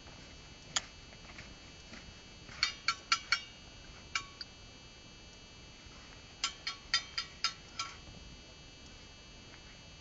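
Small Arabic coffee cups clinking as coffee is served from a brass dallah pot. There is a single clink, then a quick run of four, another single clink, and near the end a run of about six bright clinks.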